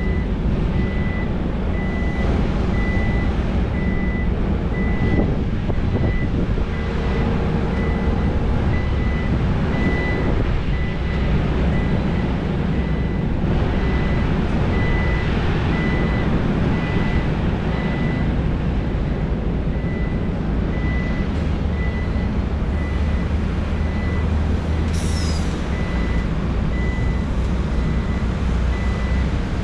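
Heavy diesel earthmoving machinery at work, a SANY SY500 excavator loading haul trucks: a steady low engine rumble, with a reversing alarm beeping evenly at one pitch throughout.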